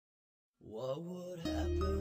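Silence, then a song's music starts about half a second in, with a steady bass line joining a second later.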